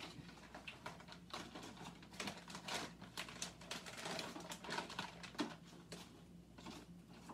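Faint, irregular clicks, taps and rustles of objects being handled, over a steady low hum.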